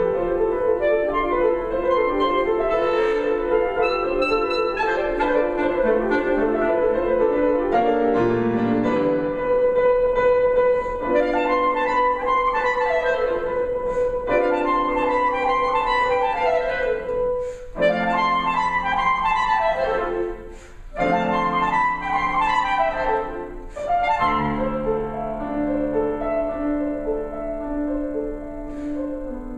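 Clarinet and piano playing a contemporary classical duet: the clarinet holds a long note over quick repeated piano figures, then the two trade a series of falling runs.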